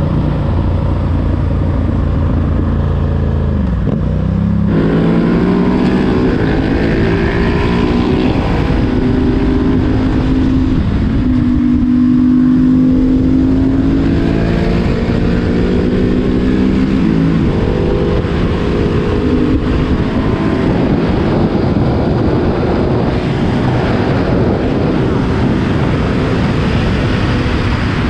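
Husqvarna 701 Supermoto's single-cylinder engine under way, its pitch climbing and dropping again and again as it is accelerated and shifted through the gears, with wind rushing over the microphone.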